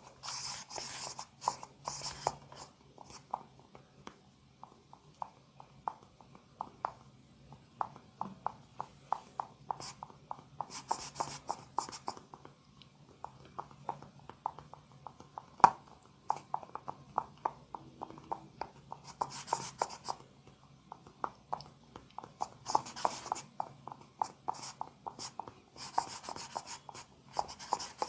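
Hands working a massage: runs of quick, light taps on the body, with short spells of rubbing on skin or hair. One sharp crack about halfway through stands out as the loudest sound.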